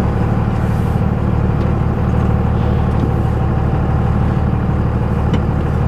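Vehicle engine running steadily at low speed as the vehicle is moved into position, a steady low hum with a faint higher tone over it.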